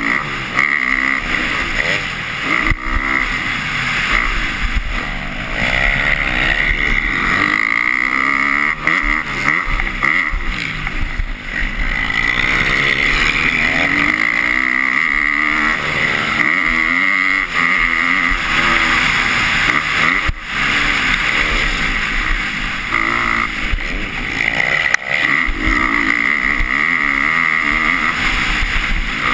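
Motocross bike engine in the 250 class, racing round a dirt track: it revs up and drops back again and again as the rider shifts gears and hits jumps and corners. It is heard from the rider's helmet-mounted GoPro.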